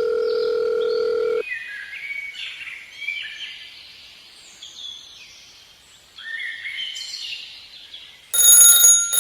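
A steady electronic tone that stops about a second and a half in, then bird-like chirps, then a loud ringing, like a bell or alarm, starting near the end.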